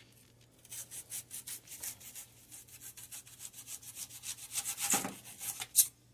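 Knife cutting through an onion against a foam plate: a quick series of short scraping strokes, several a second, with one sharper, louder stroke near the end.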